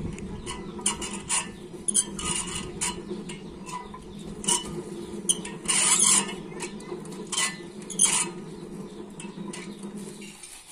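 Hand-cranked cast-iron coffee huller being turned, with a steady low hum and continuous rattling and clicking of coffee beans through the mechanism and into a steel bowl. There are louder clattering bursts about four and a half, six and eight seconds in, and the sound cuts off suddenly just before the end.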